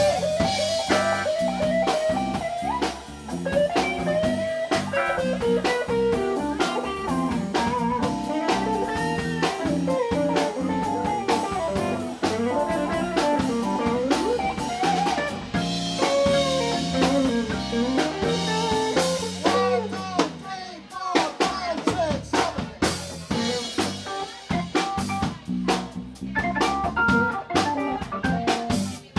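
Live blues band playing: Hammond B-3 organ, electric guitar, bass and drum kit, with bending lead notes over a steady groove. The drum strokes grow sharper and busier in the second half.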